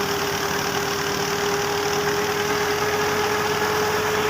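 Tractor engine running steadily under load, driving a wheat thresher through its shaft, with the thresher's rotating machinery. A fast, even engine beat runs under a steady whine.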